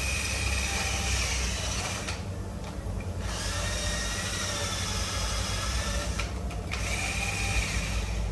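A handheld power tool whirring in a workshop, stopping briefly twice, over a steady low rumble.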